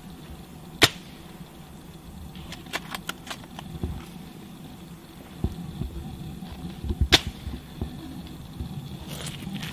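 Airsoft sniper rifle firing twice: two sharp cracks about six seconds apart, with a few lighter clicks in between.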